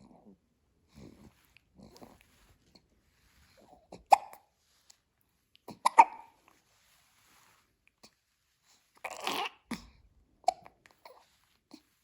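Newborn baby hiccuping: short, sharp hiccups a couple of seconds apart, with soft breaths between and a longer, noisier sound about nine seconds in.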